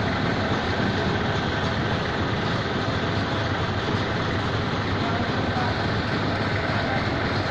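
Heavy mobile crane's diesel engine running steadily, an even unbroken drone with a low hum beneath it.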